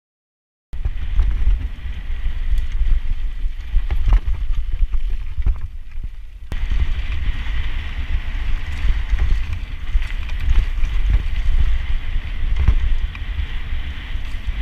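Mountain bike ridden fast down a loose dirt trail, heard from a bike-mounted action camera: heavy wind buffeting on the microphone, tyres crunching over dirt, and frequent rattles and knocks from the bike over bumps. It starts after a moment of silence.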